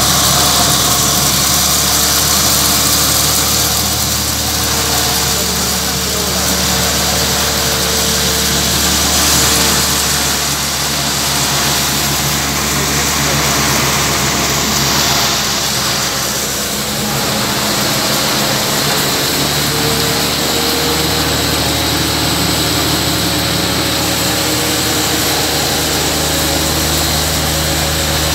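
Electric grain grinding mill running steadily: a low motor hum under a continuous hissing rush of the mill.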